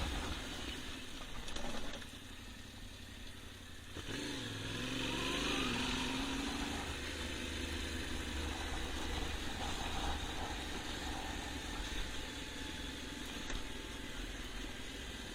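Yamaha Ténéré 700's parallel-twin engine running under a rider off-road. It eases off and quietens about two seconds in, picks up again about four seconds in with its pitch rising and falling, then runs steadily.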